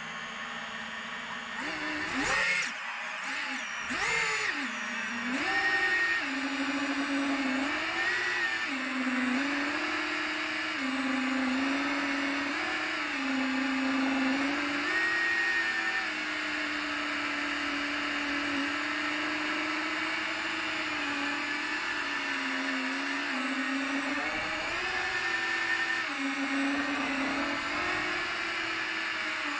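Seven-inch FPV quadcopter's brushless motors and propellers whining. They spool up about two seconds in with a few quick sweeps up and down in pitch, then settle into a steady drone whose pitch steps up and down with the throttle.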